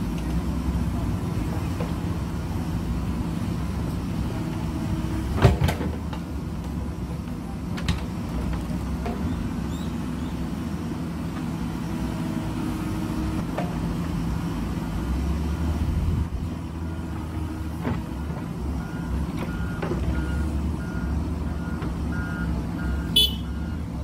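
JCB backhoe loader's diesel engine running steadily under load as the backhoe digs earth and rock. There is a sharp clank about five seconds in and a few lighter knocks later. A faint repeating beep starts near the end.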